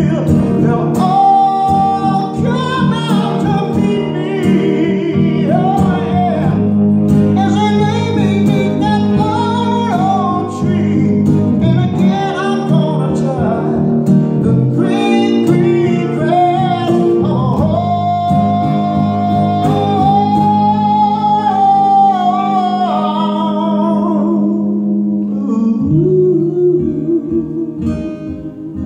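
A man singing with acoustic and electric guitar accompaniment, played live. He holds a long note a little past the middle, and the singing ends about three-quarters of the way through, leaving the two guitars playing on.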